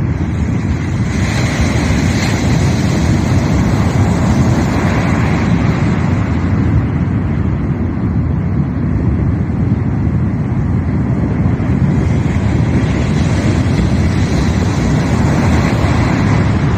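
Winter sea waves breaking and washing ashore, with strong wind buffeting the microphone as a loud, steady rumble. The surf swells up in hissing washes every few seconds.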